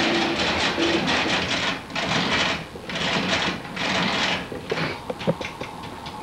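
Rhythmic machine-like whooshing, several even strokes a second, that slows to about one a second and dies away about halfway through, followed by a few light clicks and knocks.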